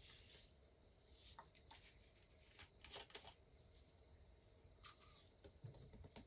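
Faint handling of a plastic bottle of pine cleaner, with small clicks and rustles as the screw cap is twisted off, one sharper click near the five-second mark. Near the end the liquid starts pouring out onto the scouring-paste blocks.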